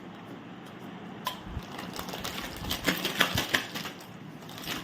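Crinkling and crackling of a plastic Kurkure snack packet being bitten and torn open with the teeth, in quick irregular bursts that are thickest about three seconds in.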